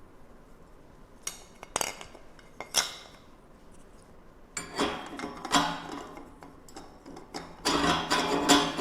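Parts of an electric meat grinder and its plastic burger press attachment being handled and fitted together: a few separate clicks and knocks at first, then busier clattering near the end.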